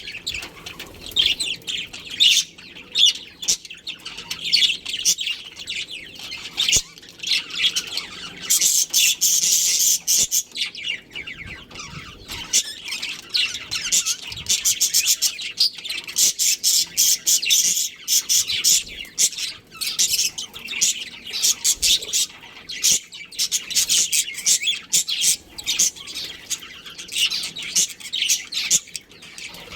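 Budgerigars chirping and chattering: a continuous stream of rapid, high chirps and squawks, busiest about a third of the way in.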